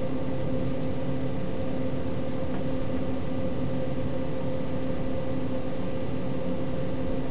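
Steady mechanical hum with a constant low drone and no changes.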